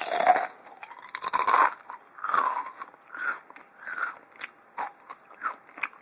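A person chewing food close to the microphone: two long, loud bites in the first two seconds, then a run of shorter, separate chews about one to two a second.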